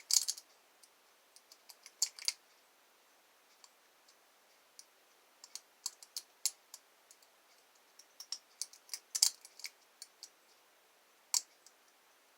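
Lock pick and tension tool working the pins of an Abus 888 padlock during picking: small sharp clicks coming irregularly in clusters, with quiet gaps between them.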